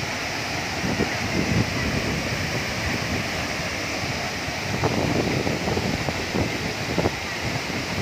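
Bantimurung Gallang waterfall pouring into its plunge pool: a steady, dense rush of falling water, with uneven low gusts of wind on the microphone.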